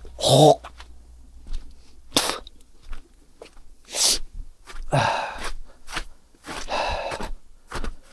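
A man's short, breathy exhalations and grunts of effort, with a few sharp knocks in between.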